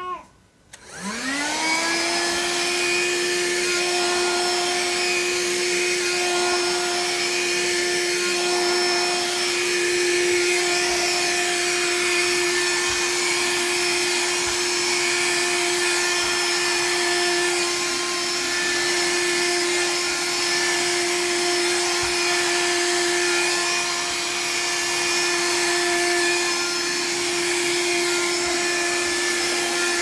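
Tower cordless handheld vacuum cleaner switched on about a second in, its motor spinning up with a rising whine, then running steadily with a high whine and a hiss of air as it is run over carpet.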